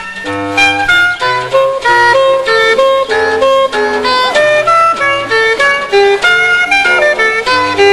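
Instrumental music: a quick melody of short, separate notes over a lower bass line.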